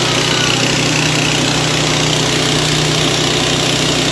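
A corn grinding mill's 6.5 HP petrol engine running at a steady speed, with an even hum and dense rattling noise from the running machine.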